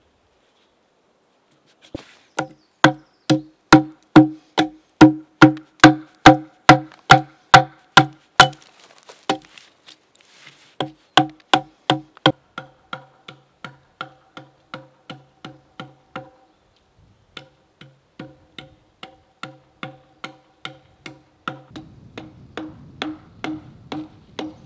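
Background music: one pitched, wood-block-like percussive note repeated at a steady beat of about two a second, in three runs with short pauses between them. A low rumble joins it near the end.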